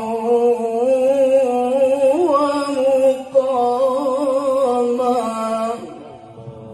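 Male qari's voice in Quranic recitation (tilawah), holding a long melismatic note with a wavering, ornamented pitch. The voice stops near the end, leaving a faint low hum.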